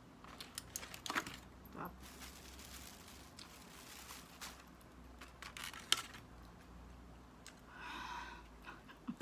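Aluminium foil crinkling and crackling as a foil food wrap is pulled open, then faint scattered clicks. A short hummed voice sound comes near the end.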